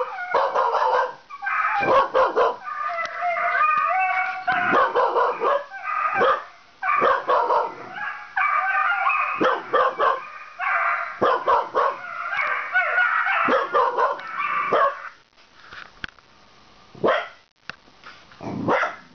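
Dogs calling: a red heeler puppy barking and yipping at German pointers howling on a video played through a laptop's speaker. The wavering calls go on almost without a break for about fifteen seconds, then a few short sharp barks near the end.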